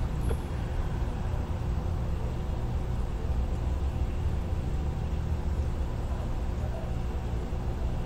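Steady low background rumble with no speech, even in level throughout.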